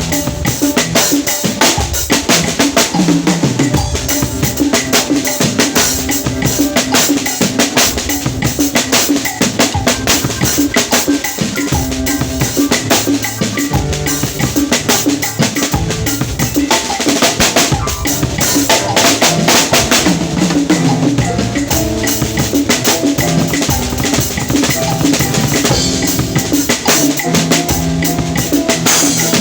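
Drum kit being played continuously, with dense, fast strokes on the drums under a constant wash of cymbals.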